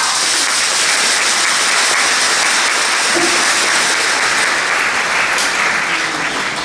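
Audience applauding steadily: a dense wash of clapping that breaks out just as the dance music stops.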